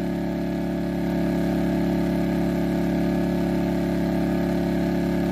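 Heomaito HMT3500iD dual-fuel inverter generator running steadily on propane with eco mode off, under a load of about 1,200 watts from one heater.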